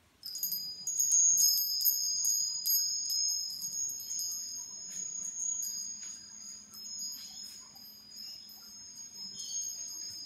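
Metal-tube wind chime set swinging by hand. The tubes clatter against each other in a quick run of strikes over the first two seconds, then two high ringing tones hang on and slowly fade, with a few lighter strikes later on.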